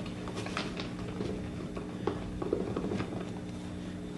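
Popsicle sticks stirring sticky glue slime mixture in plastic cups: light, irregular clicks and soft squelches, over a steady low electrical hum.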